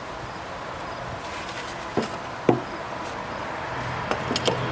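A hammer striking nails into wood framing: two blows about half a second apart, roughly two seconds in, then a few lighter taps near the end, over a steady background buzz.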